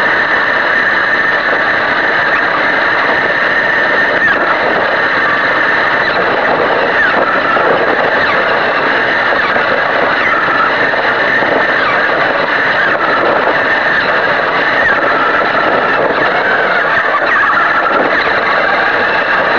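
Radio-controlled car's motor and drivetrain whining steadily as it drives along, picked up close from a camera mounted on the car, with small rises and falls in pitch.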